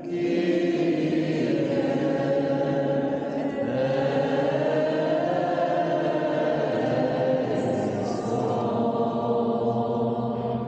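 A group of voices singing a slow hymn in long, held notes, echoing under the stone vaults of a church.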